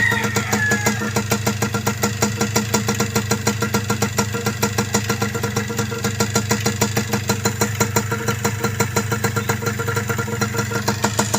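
Yamaha DT125's single-cylinder two-stroke engine idling steadily, with an even, rapid pulse.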